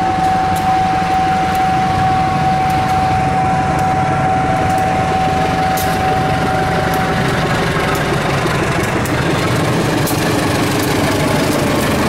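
CC203 diesel-electric locomotive's engine running under power as it pulls a passenger train away and passes close by. A steady high tone sounds over it and stops about seven seconds in.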